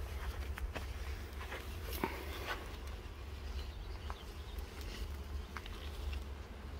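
Honeybees buzzing around an open hive box, over a steady low rumble, with a few light clicks.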